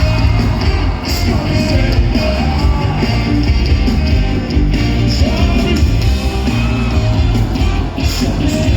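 A band playing a song with a singer, with some shouting in it.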